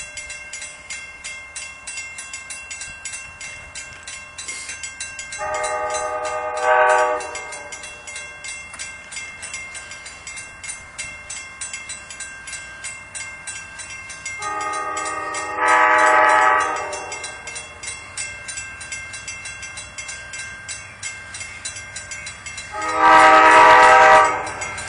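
Amtrak diesel locomotive's horn sounding three blasts as the train approaches a grade crossing. Each blast starts softer and swells louder, and the last, near the end, is the loudest. A crossing bell rings steadily underneath.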